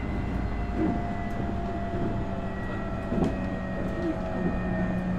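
Nankai 8300 series train heard from aboard a motor car while running: steady whines from the Hitachi two-level IGBT VVVF inverter and the Toyo Denki TDK-6315-A totally enclosed induction motors over a low rumble of wheels on rail. A few clicks from rail joints cut through the rumble.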